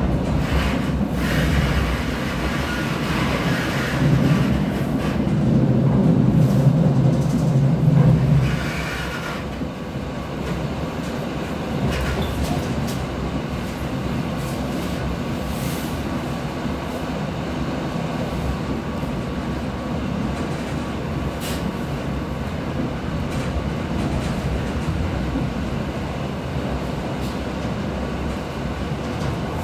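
Electric commuter train running through a tunnel, heard from inside the carriage: a steady rumble of wheels on rail, loudest in the first several seconds, then settling to an even level.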